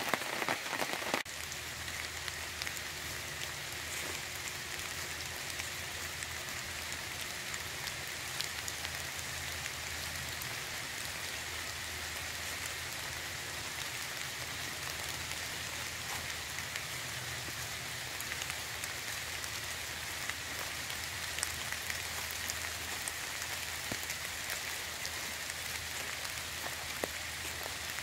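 Steady rain falling through the tree canopy onto leaves and leaf-covered ground, with scattered single drips ticking.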